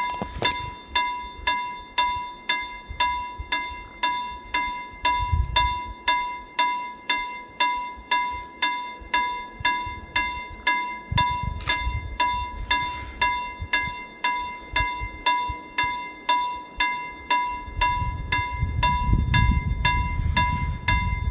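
Railway level-crossing warning bell ringing over and over, about two strokes a second, each a clear chiming ding that dies away: the signal that a train is approaching. A low rumble comes and goes and grows near the end.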